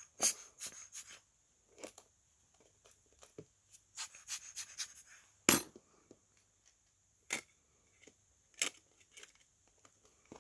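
Scattered light clicks and taps of a smartphone and small repair tools being handled on a work surface, with one sharper knock about five and a half seconds in.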